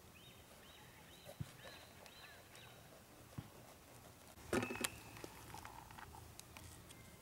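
A bird calling in a quick series of short, repeated whistled notes for about three seconds. A little past the middle comes a sharp clatter of handling, as a bell pepper is cut with a knife at a wooden picnic table.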